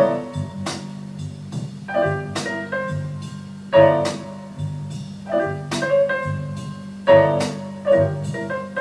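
Jazz recording played back over hi-fi loudspeakers: piano chords struck again and again over a moving bass line.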